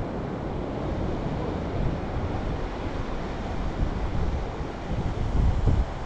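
Wind buffeting the microphone, with a stronger gust near the end, over the steady wash of ocean surf.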